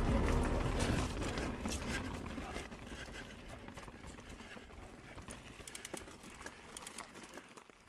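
Mountain bike rolling along a dirt trail: tyre noise over leaves and rocks, with scattered clicks and rattles from the bike. The sound fades steadily away to near silence.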